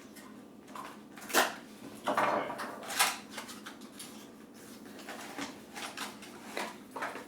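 Earbud product box and its packaging being opened and emptied by hand: irregular knocks, clicks and short scraping rustles, the sharpest about one and a half and three seconds in.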